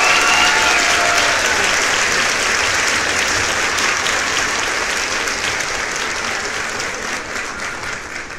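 Audience applauding, a steady patter of many hands clapping that gradually dies away over the last few seconds.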